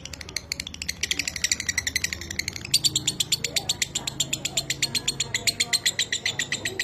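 Lovebird singing its 'ngekek': a long, fast rattling chatter of about eleven notes a second in a dry, minor voice. The chatter breaks briefly and starts afresh about two and a half seconds in.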